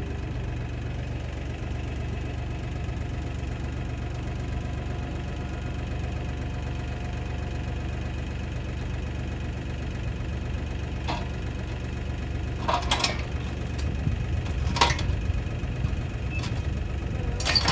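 Compact LS tractor's diesel engine running steadily, with a few sharp knocks or clanks in the second half.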